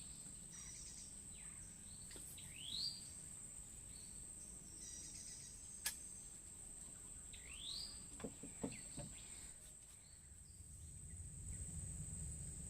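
Riverside ambience: a steady high-pitched insect drone, with a bird giving a short rising call twice, and one sharp click about six seconds in.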